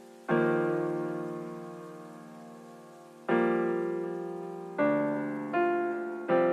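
Background piano music: slow chords, each struck and left to fade, with three chords coming closer together in the last two seconds.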